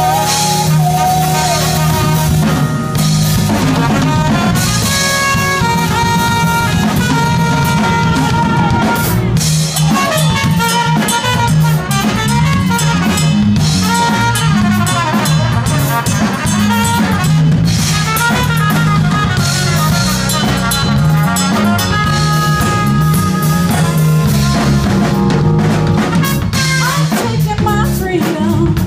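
Live band playing: a trumpet carrying the lead line over drum kit, electric bass and keyboard, with a steady groove.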